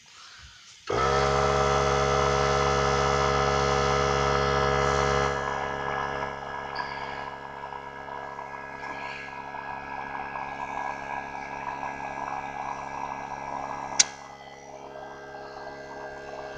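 Central Pneumatic 95275 3-gallon oilless air compressor's motor kicking on suddenly about a second in and running steadily, as air is drawn from the tank to fill a tire. It runs loud at first and somewhat quieter from about five seconds in, with a single sharp click near the end.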